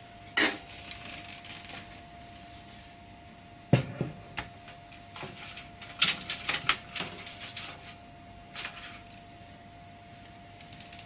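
Handling noises from a computer case and its parts: a scrape, a single low knock, then a quick run of small clicks and taps and another scrape. A faint steady tone runs underneath.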